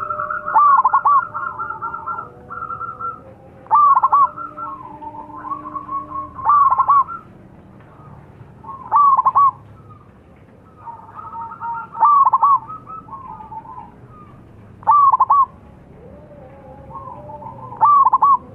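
Zebra doves cooing: about seven loud, short staccato coo phrases come roughly every three seconds, with quieter, overlapping coos and trills between them.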